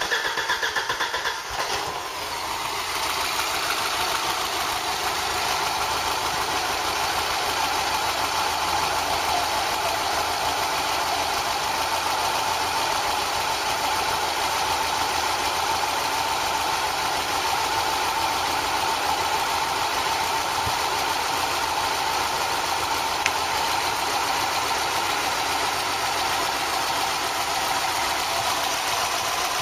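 Freshly rebuilt Ford 2.0 Pinto four-cylinder engine running just after firing up, uneven for the first couple of seconds, then settling to a steady idle. It is running with its air cleaner off, so the carburettor intake is heard openly.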